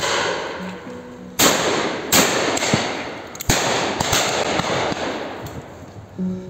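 A string of shotgun shots, several within about three seconds, loudest at about a second and a half, two seconds and four seconds in, each sharp report trailing off in a long echoing tail.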